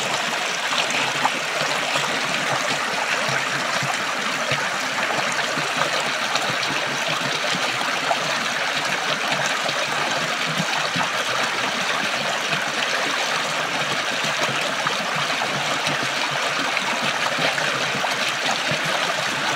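Shallow rocky stream rushing and splashing over boulders in a small cascade: a steady, even water noise.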